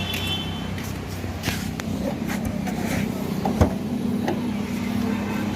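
A steady engine hum with a few sharp clicks and knocks over it. The hum's pitch steps up slightly about four seconds in.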